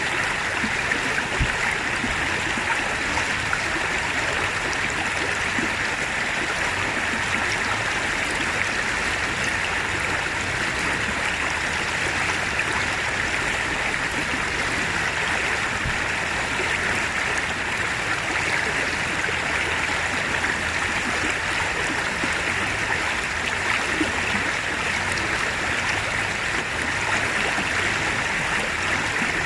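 Steady rush of a rocky stream running over rapids, an even unbroken water noise.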